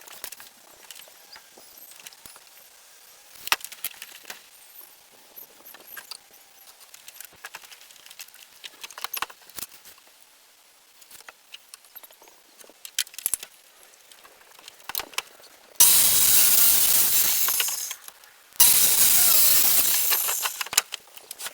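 Scattered knocks and clicks of wood and tools being handled, then near the end a circular saw cutting through a 4x4 post in two loud cuts of about two seconds each, with a short break between them.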